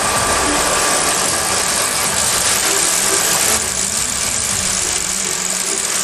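Honor Seiki PL-350 CM vertical turning center taking a heavy 20 mm depth-of-cut pass on a large rotating metal ring: steady, dense machining noise from the tool and spinning table, with a thin high tone over the first second or so.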